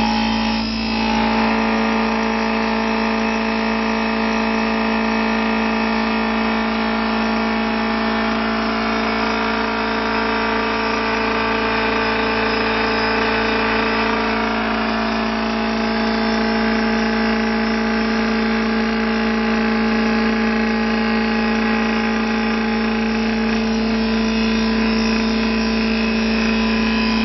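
Wood CNC lathe turning a spindle: the spinning cutter head chips away at the rotating wood blank with a steady hum and whine from the motors, over a dense rushing noise from the cutting.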